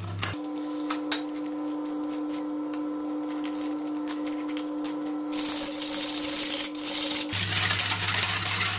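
A plastic sachet crinkled and handled as its powder is emptied into milk in an aluminium saucepan, then, from about five seconds in, a wire whisk stirring and scraping in the pan. A steady low hum runs under most of it.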